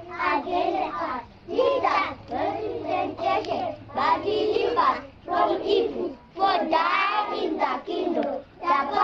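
A group of young children singing together in unison, in short phrases of a second or two with brief breaks between them.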